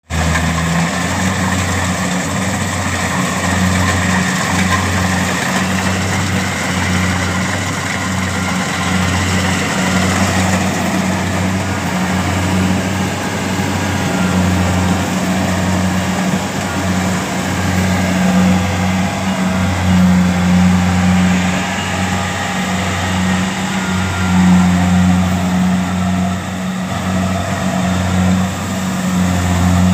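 Kubota DC-70 combine harvester's diesel engine running steadily as the machine tracks through deep paddy mud. A low hum swells and dips about once a second.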